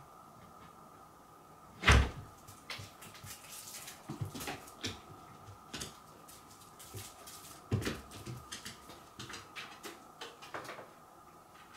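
Cat scuffling under a sisal-rope cat tower: a loud thump about two seconds in, a second thump near eight seconds, and a scatter of scratches, taps and rustles between them.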